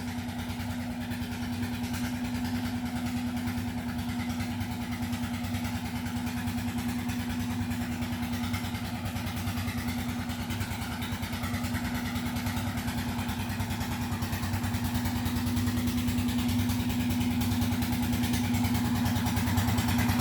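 Generator set engine running steadily with a fast, even tek-tek beat, growing slowly louder.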